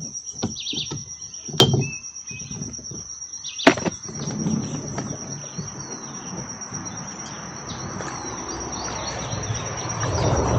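A steady high insect trill with small birds chirping, and two sharp knocks in the first four seconds. From about four seconds in, a low wash of water noise builds as the plastic kayak is paddled off the bank.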